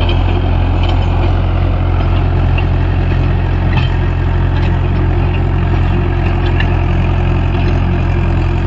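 Mahindra 415 DI tractor's diesel engine running steadily at an even speed.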